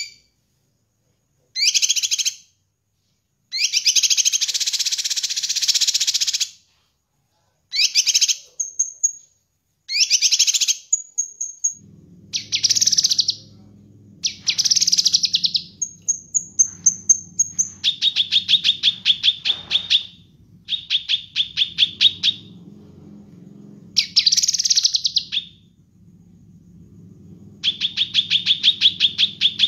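Caged cucak kinoi leafbird singing a loud, varied song in separate phrases: a long buzzy chatter, thin high whistles, and several runs of rapid repeated notes, about eight to ten a second. A steady low hum starts about twelve seconds in, under the song.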